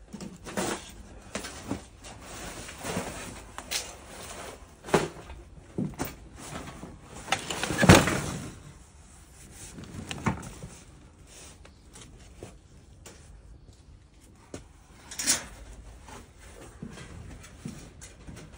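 Rummaging: items being shifted and knocked about among cardboard boxes and steel shelving, irregular knocks, scrapes and rustles. The loudest knock comes about eight seconds in, and another sharp one about fifteen seconds in.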